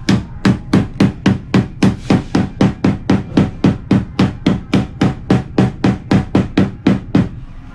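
Rapid, evenly spaced percussive knocks, about four a second, holding a steady beat and stopping shortly before the end.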